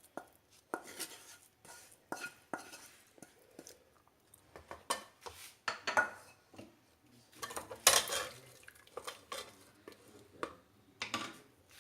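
A metal spoon scraping and clinking against the inside of a metal cooking pot in irregular knocks as a thick masala is stirred into cooked chickpeas, with the loudest knocks about eight seconds in.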